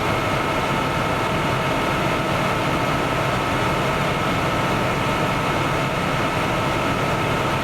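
Heavy vehicle engine idling steadily, with a steady high whine over the rumble.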